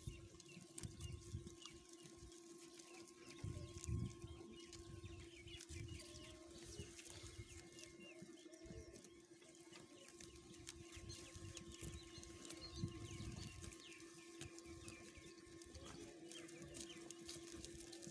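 Faint farmyard ambience: small birds chirping over a steady low hum, with occasional low thumps.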